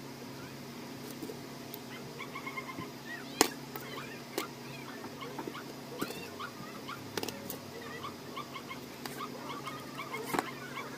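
Many short, high chirping cries from small animals, over a steady low hum, with a few sharp clicks.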